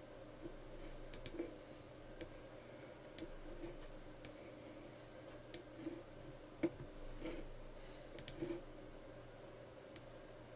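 Faint computer mouse clicks, about ten, irregularly spaced, as segments of a drawing are selected, over a faint steady hum.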